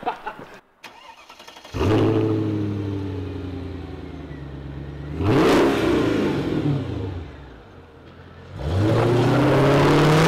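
Mercedes coupe engine starting about two seconds in with a sudden flare, then settling. It is blipped up and back down around five seconds in, then rises in pitch under throttle near the end as the car pulls away.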